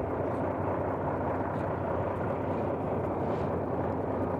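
Fire engine running steadily with its pump engaged, a constant mechanical drone with a low steady hum.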